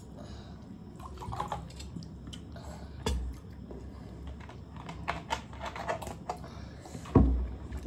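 Scattered small clicks and taps of eating and drinking at a table: plastic bottle, plastic cup and mouth sounds, with a dull thump about three seconds in and another near the end.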